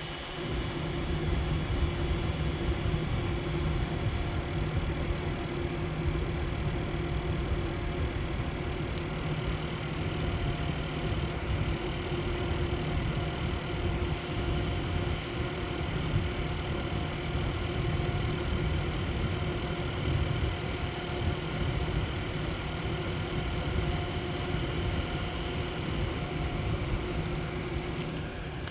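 A vehicle engine running steadily at high revs with a rattling noise, its pitch holding level throughout.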